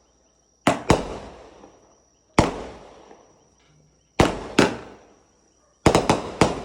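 Fireworks going off: about nine sharp, loud bangs in uneven groups, ending in a rapid string of four, each trailing off in an echoing decay.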